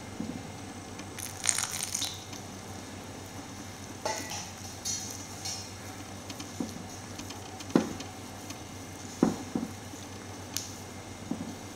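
Hands mixing and kneading a soft maida, ghee and khova dough in a bowl: intermittent squishing and scraping, with a few sharp knocks.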